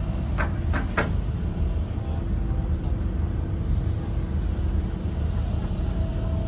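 A heavy machine's engine running steadily: a low rumble with a constant hum. Three short, sharp chirps come close together about half a second in.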